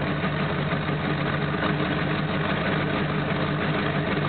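Classic Ford Bronco's engine running steadily, its pitch even throughout.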